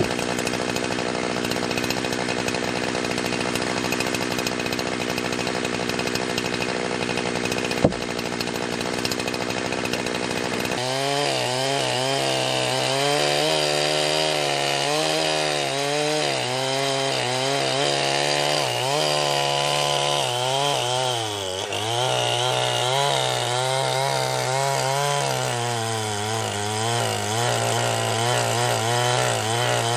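Jonsered 2071 two-stroke chainsaw running hard and cutting wood, with a sharp click about eight seconds in. After an abrupt change near eleven seconds, the engine pitch dips and rises again and again as the chain loads up in the cut. The owner judges the carburettor to be set fairly rich.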